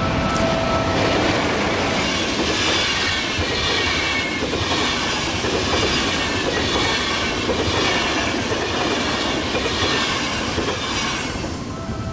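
Passenger train hauled by a PKP Intercity EP09 electric locomotive passing close at speed: a loud, steady rush of wheels on rail with a wavering high ringing from the wheels, dying away near the end as the last coach goes by.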